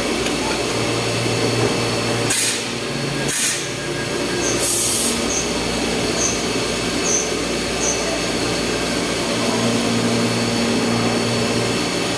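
CNC milling machine running steadily with a constant hum, broken by three short bursts of hiss about two, three and a half and five seconds in.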